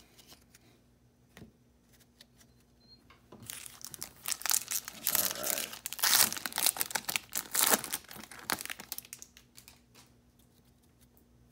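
Foil wrapper of a 2019 Topps Series 1 baseball card pack crinkling and tearing as it is pulled open by hand. The crinkling starts about three and a half seconds in, grows loudest in the middle and dies away a second or two before the end.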